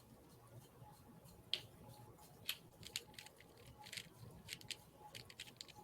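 Rubik's Cube being turned fast in a speedsolve: quick, irregular plastic clicks and clacks as the layers turn, faint.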